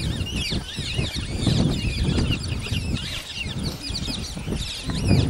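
Many birds chirping and twittering in quick, short calls, over an uneven low rumble.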